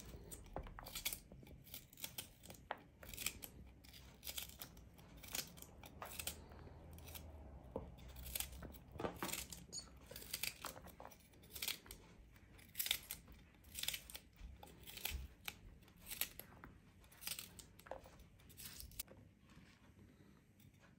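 Kitchen knife slicing a green chili pepper held in the hand. Each cut through the crisp flesh makes a short, sharp snip, irregular at about one a second.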